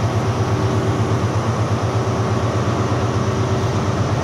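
Class 43 HST power car's diesel engine idling at a standstill: a steady, loud, throbbing low hum with a few fainter higher tones above it.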